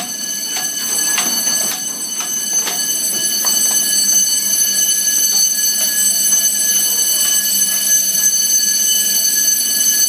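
Building fire alarm sounding continuously: a steady, high-pitched tone that grows louder a few seconds in. A few sharp knocks are heard over it in the first few seconds.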